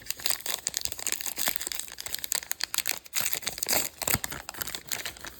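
Trading-card pack wrappers crinkling and tearing as packs are handled and opened by hand, a dense run of irregular crackles.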